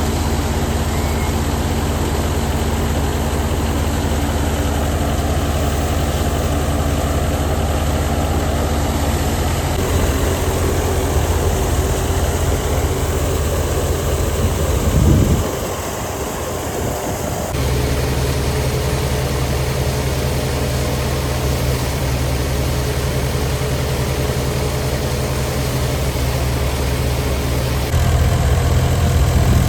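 Wheat thresher running steadily, a loud engine-driven machine drone. Its tone changes abruptly a few times: it dips briefly about halfway through and gets louder near the end.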